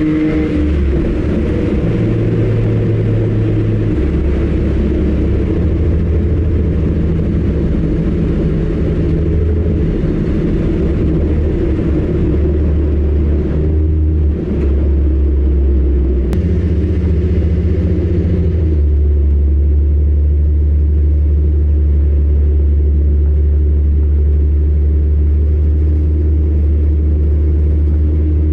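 Car driving, a continuous low engine and road rumble that changes pitch a few times.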